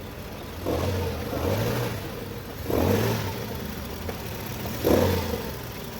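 Nissan Sentra engine running and blipped three times. Under it is the growl that the mechanic traces to a worn drive-belt tensioner, whose weakened spring and bad bearing let the belt vibrate.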